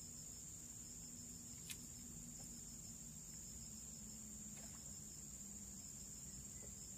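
Faint, steady, high-pitched insect drone, with a faster pulsing chirp just beneath it. One sharp click comes a little under two seconds in.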